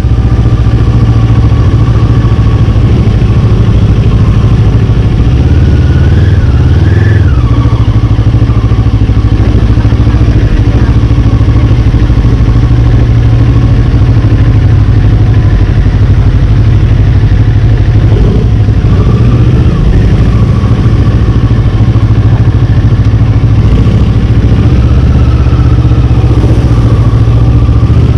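CFMoto 400NK motorcycle's parallel-twin engine running while riding slowly over a rough dirt lane, picked up close from the rider's position. The engine note rises briefly about six to seven seconds in and again around eighteen seconds in.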